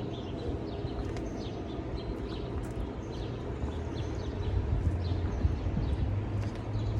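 Outdoor ambience: many short high chirps from small birds over a steady low rumble.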